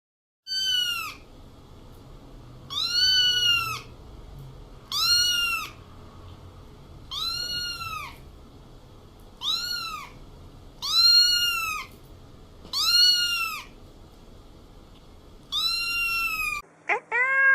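A cat meowing eight times, about one call every two seconds, each high-pitched meow rising and then falling in pitch. Near the end a different, lower-pitched cat gives two short, quick meows.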